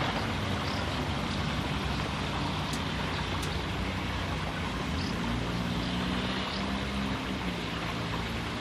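Pond overflow water babbling as it runs down an open drainage ditch, a steady rushing noise. A low engine hum sits underneath and grows stronger about five seconds in.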